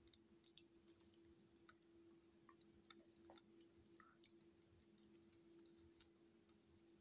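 Faint, irregular clicks and snaps of plastic parts and joints as a Transformers Depth Charge action figure is folded and twisted by hand, over a low steady hum.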